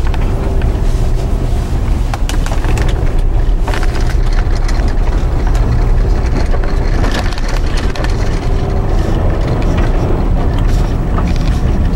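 Vehicle driving on an unplowed snow-covered dirt road: a steady low rumble of tyres and suspension with frequent crunching knocks and crackles.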